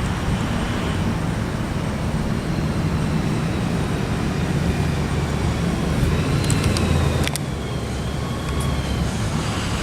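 Steady road traffic rumble from passing cars and trucks, with a few sharp clicks about two-thirds of the way through.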